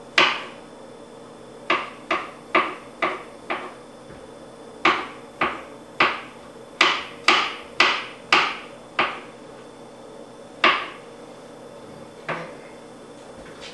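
Kitchen knife slicing mushrooms, the blade knocking sharply on a cutting board in runs of quick strokes about two a second, with short pauses between the runs.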